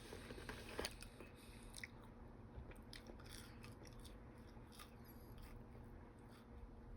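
Faint chewing, with scattered soft mouth clicks, of someone eating.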